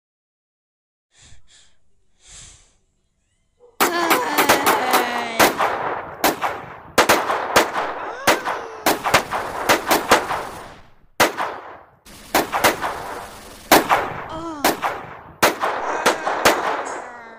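Sound-effect machine-gun fire and gunshots: two faint short sounds come first, then about four seconds in rapid automatic fire starts and keeps going in loud volleys with brief breaks.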